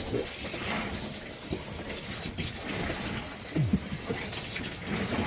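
Rinse water running steadily from a hose into the wash tub of a portable twin-tub washing machine, with a few soft splashes as the clothes are pushed down and turned in the water.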